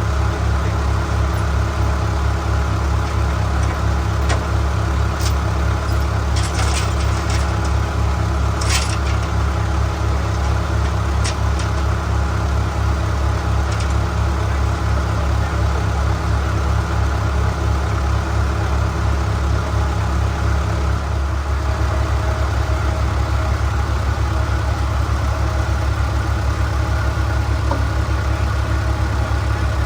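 A vehicle engine running steadily, its note changing about two-thirds of the way through, with a few light clicks in the first third.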